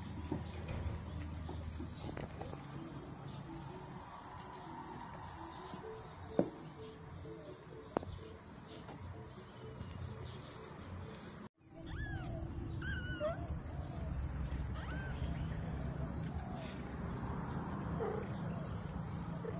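Young kittens mewing: a few short, high cries that bend up and down, over a low steady background hum. Before that, about halfway through, the audio drops out briefly, and the earlier part holds only low background noise and a couple of sharp clicks.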